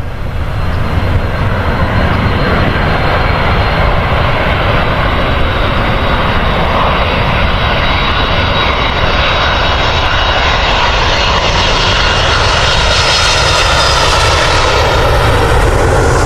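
Airliner engines running loud and steady as an aircraft passes close by, the sound growing brighter and sharper over the last few seconds as it comes nearer.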